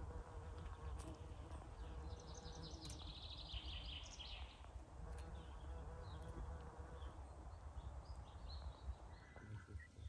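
A bumblebee buzzing as it flies around low plants close to the microphone.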